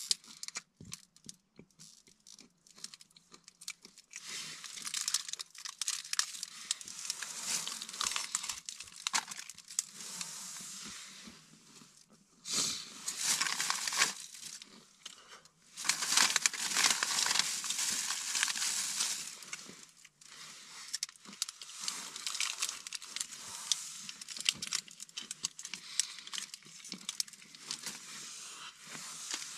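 Thin plastic bag rustling and crinkling as a hand rummages in it, in several long bursts with short breaks.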